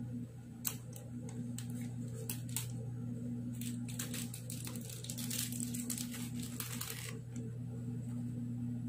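Crisp clicks and crackles of a crunchy chocolate-coated snack being bitten and chewed, scattered at first and densest from about five to seven seconds in, over a steady low hum.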